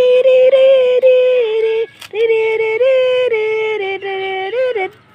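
A high woman's voice singing long held, sliding notes in two phrases, with a brief break about two seconds in.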